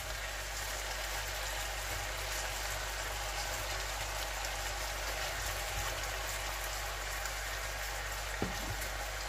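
Coconut milk sizzling and bubbling in a frying pan under a load of fresh vegetables, a steady hiss, with one light knock near the end.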